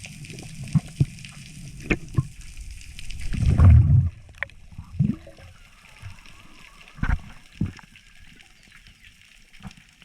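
Water sloshing and gurgling around a spearfisher's camera, with several sharp knocks. About four seconds in comes a loud low rush of water, after which the steady hiss stops.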